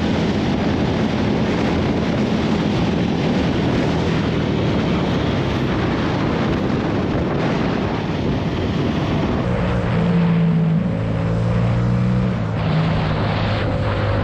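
Motorcycle riding at road speed: heavy wind rush on the helmet or handlebar microphone over the engine. After about nine and a half seconds the wind eases and a steady engine drone comes through, dipping briefly near the end.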